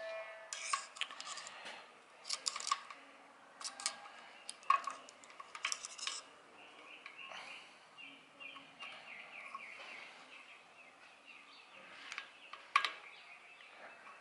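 Light metallic clicks and taps as a cogged pulley and toothed hook belt in a Prodigy longarm quilter's aluminium head are worked loose by hand. The clicks come in quick clusters over the first six seconds, then it goes quieter, with one sharper click near the end.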